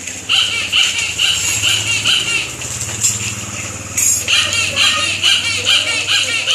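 High-pitched laughter in quick repeated bursts, about two to three a second, pausing briefly in the middle and then starting up again.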